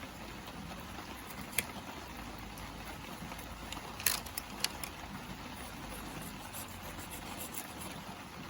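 Handling of a dull razor blade trimming the excess rubber of a tire plug: a few short, sharp clicks, the loudest cluster about four seconds in, over a faint steady background hiss.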